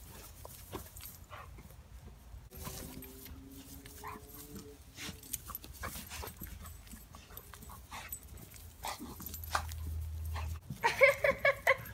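Two pit bulls playing rough, panting and scuffling on grass as they tug at costume fabric, with a faint whine a few seconds in. Near the end comes a quick run of short, high-pitched calls, the loudest part.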